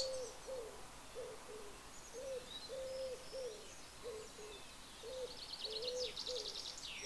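A pigeon cooing, a run of low notes, some short and some drawn out, repeating every half second or so. Small songbirds chirp high above it, with a fast trill near the end that is the loudest thing.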